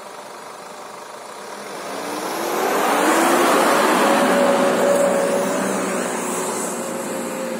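An SUV's engine revving up hard about two seconds in, its pitch rising and then held high under load as it powers up a steep sandy slope, with its tyres churning through the sand. It eases off and fades toward the end.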